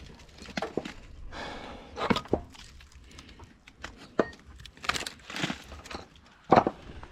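Wooden boards knocking and clattering as they are handled and set down, a handful of irregular knocks, with footsteps.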